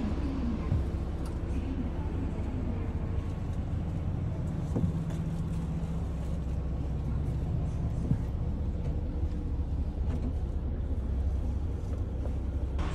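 Steady low engine hum and rumble of a highway coach heard inside the cabin, with a few faint clicks.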